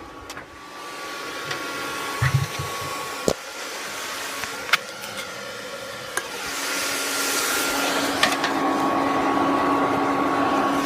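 Hair dryer blowing air into a charcoal forge: a steady whooshing with a constant hum, getting louder about six seconds in. Several sharp metallic clinks and knocks of a steel poker among the cans in the fire, and one low thud about two seconds in.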